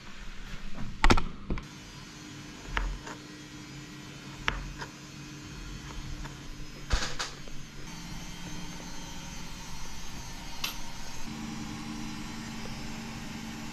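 Knife and fork clicking and knocking on a plastic cutting board and plate as pickles are sliced and sprats are laid on bread: a few sharp, scattered clicks, the loudest about a second in and another in the middle, over a steady low hum.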